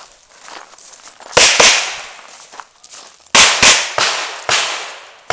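Revolver shots fired in quick pairs, about a quarter second apart: one pair about a second and a half in and a louder pair about two seconds later, with a weaker shot between and one after. Each sharp crack trails off in an echo over about a second.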